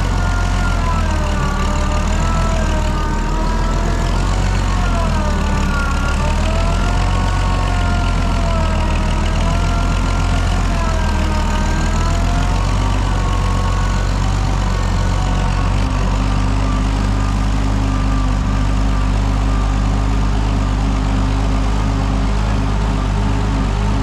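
Oliver 77 tractor's six-cylinder engine running steadily. Over the first half a whining tone rises and falls in pitch several times, then fades, leaving the steady engine note.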